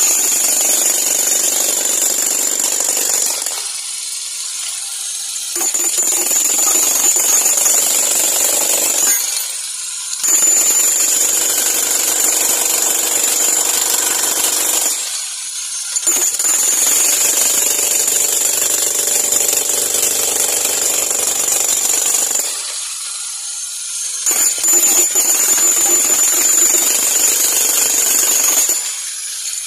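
Makita HM1317C electric demolition hammer hammering in about five runs of several seconds each, with short pauses between them. A steady high whine rides over the pounding during each run.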